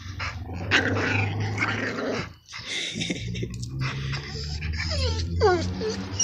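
Pocket bully dogs growling low, then whining in short cries that fall in pitch, starting about five seconds in.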